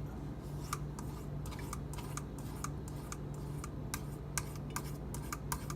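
VG10-steel pocket-knife blade, held at a set angle by a guide clip, being stroked on a wet whetstone: a run of short scrapes and clicks, a couple each second, as the edge is sharpened one stroke at a time. A steady low electrical hum runs underneath.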